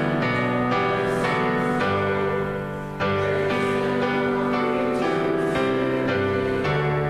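Slow instrumental worship music on keyboard: sustained chords that shift every second or two, with a new chord struck about three seconds in after the previous one fades.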